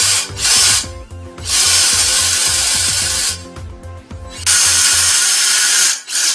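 Cordless drill spinning a flexible-shaft drain cable inside a clogged toilet bowl, run in bursts: two short ones, then two longer ones of about two seconds and a second and a half. Music with a steady low beat plays underneath.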